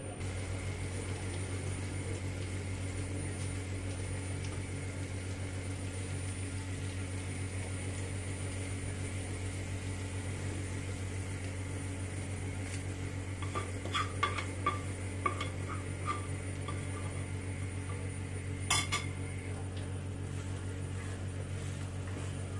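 A spoon stirring food in a metal cooking pot, clinking against the pot several times a little past halfway, then one sharper clank later on, over a steady low hum.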